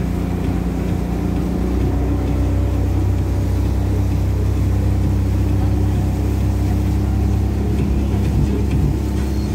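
Speedboat engine running steadily at speed, a continuous low drone with water rushing past the hull.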